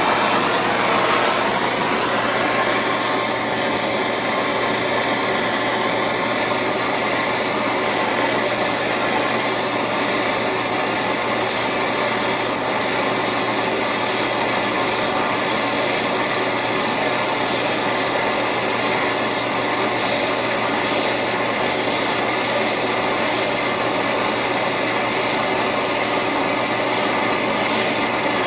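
Handheld gas torch flame hissing steadily as it heats a fluxed bandsaw blade joint for silver soldering, with a brief louder swell in the first couple of seconds.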